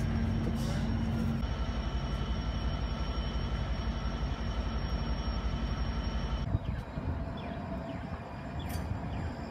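Rail sounds across cut clips: a diesel passenger train's steady low rumble with steady whining tones over it. About two-thirds through it changes abruptly to a quieter MTS light-rail trolley car rolling on street track.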